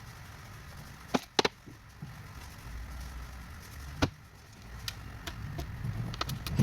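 Several sharp knocks and clicks over a low, steady rumble. The loudest are a quick double knock about a second in and a single knock about four seconds in, with a run of lighter ticks near the end.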